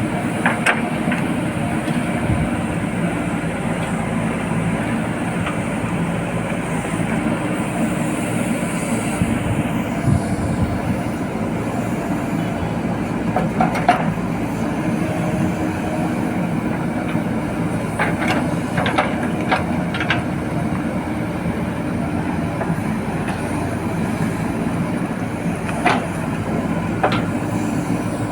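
JCB 4DX backhoe loader's diesel engine running steadily under work, with occasional sharp knocks and clanks, several of them close together around the middle.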